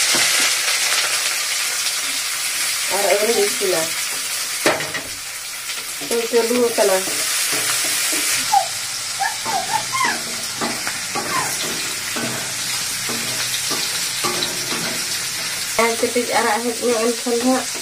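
Sliced onions frying in hot oil in a steel kadai, sizzling as they are stirred with a wooden spatula; they have just gone into the oil. The sizzle is strongest in the first half and eases off after about eight seconds.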